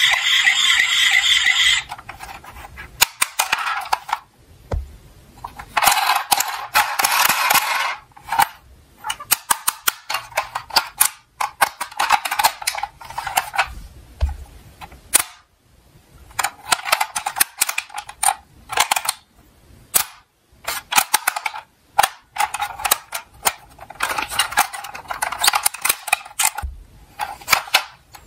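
Toy diecast cars clattering on a toy slope: many sharp clicks and knocks, with several stretches of about two seconds of rattling as cars run down.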